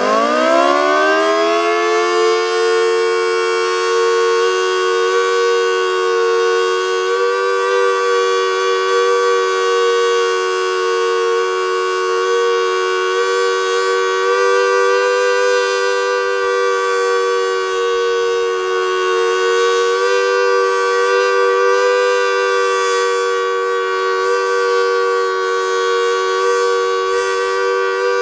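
Federal Signal Model 2T two-tone outdoor warning siren on its full alert signal: it winds up in rising pitch over the first few seconds, then holds a loud, steady two-tone chord. The unit is described by the recordists as old and showing its age.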